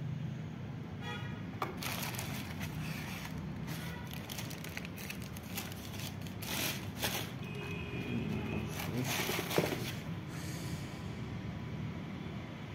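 Crinkling and rustling of white plastic wrapping being pulled back and handled in a cardboard shoebox, in irregular bursts over a steady low hum, loudest from about two seconds in until about ten seconds in.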